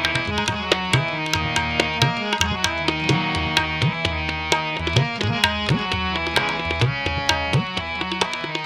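Indian instrumental background music led by tabla: a steady rhythm of drum strokes over sustained melodic tones.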